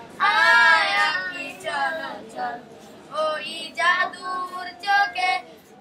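A child singing in a high voice, in several phrases. The first phrase is held for about a second.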